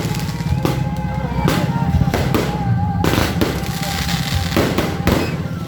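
Fireworks going off in sharp, irregular bangs over a dense, steady drumming.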